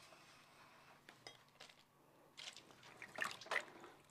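Water splashing and sloshing in a stainless steel bowl as a geoduck clam is rinsed and worked by hand: a few small, faint splashes, the loudest a little after three seconds in.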